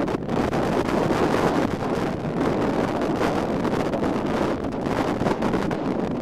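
Wind blowing across the microphone, a steady rush of noise that flutters throughout.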